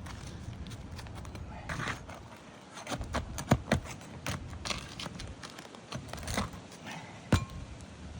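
Scattered clicks, knocks and scraping from hand work on an asphalt shingle roof repair, with two sharp louder knocks, one about three and a half seconds in and one near the end.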